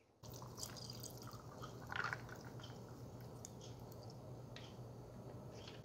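Liquid poured from a plastic bottle into a plastic cup with ice: faint trickling and dripping with small ticks.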